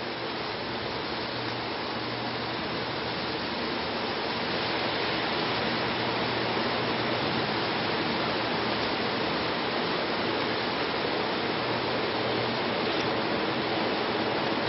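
Taiwan Railway freight wagons rolling past at close range as the train pulls out of the station: a steady rushing rumble of wheels on rails that grows louder over the first five seconds as the train gathers speed, then holds.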